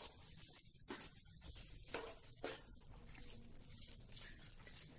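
Spatula stirring crumbled paneer into a tomato, onion and pea masala in a frying pan, with faint sizzling and soft irregular scrapes.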